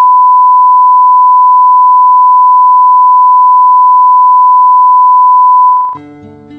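Steady, very loud single-pitch test tone of the kind that goes with colour bars, held unchanged and then cutting off near the end. Soft music with plucked-string notes begins as the tone stops.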